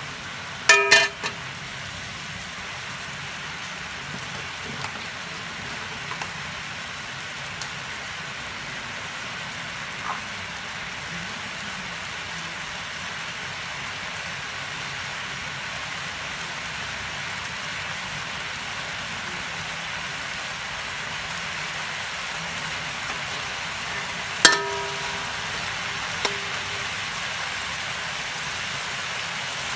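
Pork and ginger sizzling and bubbling in hot oil and sauce in a metal wok. A metal spatula strikes the wok with ringing clangs: several in quick succession about a second in, and one loud clang near the end.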